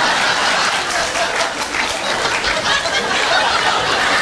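Studio audience laughing and applauding, a steady loud wash of clapping and laughter.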